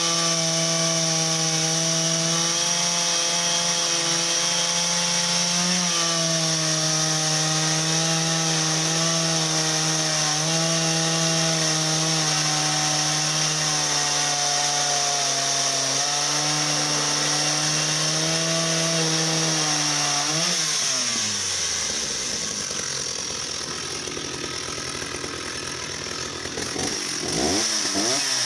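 Stihl 045 AV 75cc two-stroke chainsaw running at high revs under load, cutting through a log. About twenty seconds in, the engine pitch drops away sharply as the throttle comes off, and it runs lower and rougher, with brief rises and falls in pitch near the end.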